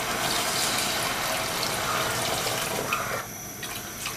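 Hot water poured in a steady stream from a glass measuring jug into a pot of thick rice-flour paste, thinning it; the pour turns quieter a little after three seconds in.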